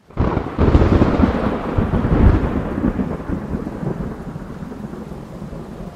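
Thunder over a heavy downpour: a clap starts suddenly, rumbles loudly for two or three seconds and slowly dies away, leaving the steady rain.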